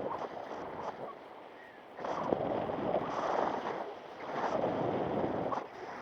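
Wind rushing over the microphone during paraglider flight, swelling loudly twice in the middle as gusts, with a few short ticks.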